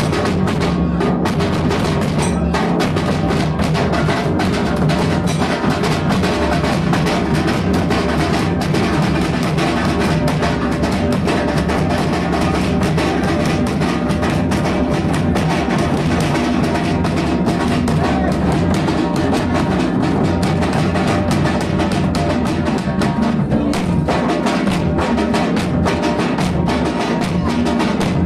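Dhol and tasha drums playing together in fast, dense drumming that goes on without a break.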